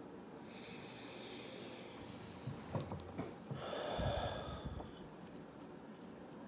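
A man breathing heavily through his nose: a long hissing breath, then a few light clicks, then a louder, fuller exhale about four seconds in.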